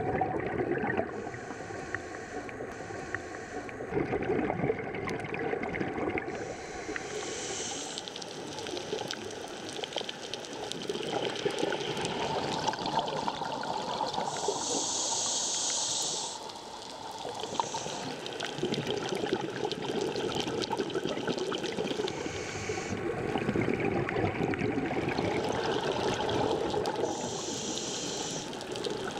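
Scuba breathing heard underwater: a regulator's exhaust bubbles gurgle steadily, and a short hissing inhalation through the demand valve comes every few seconds.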